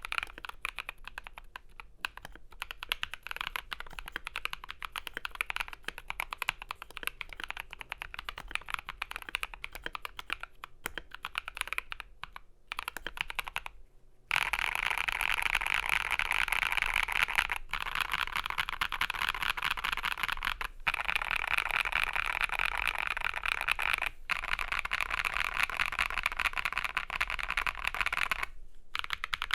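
Continuous typing on a mechanical keyboard: an FL.eSports MK870 with lubed and filmed Gazzew Boba U4T tactile switches on a polycarbonate plate, with Akko ASA keycaps, giving rapid, dense key strokes. About halfway through the typing becomes louder and denser after a short break.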